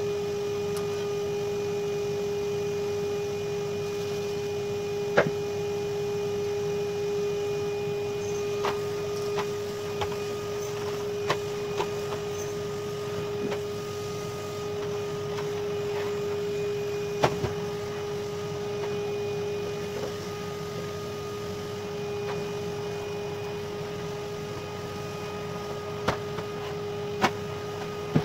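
Vacuum cleaner motor running steadily with an even whine, with scattered light knocks and clicks as things are bumped and moved.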